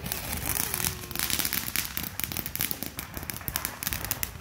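Consumer firework going off, a dense run of rapid crackling pops.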